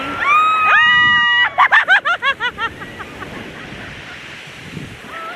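A woman shrieking with laughter: one long high squeal, then a rapid run of cackling laughs that dies away after about three seconds. Surf washes on the shore behind.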